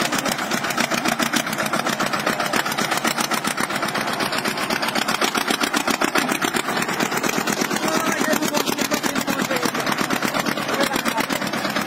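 Small tractor's diesel engine running steadily with a fast, even chug, working under load as it hauls a heavy load up a steep rocky slope.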